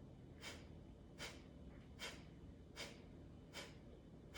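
A person breathing out in short, sharp puffs through the nose, one a little more often than every second, about five in a row: a rhythmic, pumping exhale in a yogic breathing practice.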